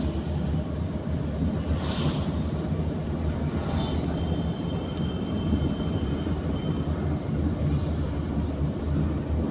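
Steady engine and road rumble of a moving car, heard from inside the cabin, with a couple of brief hissy swells as traffic passes.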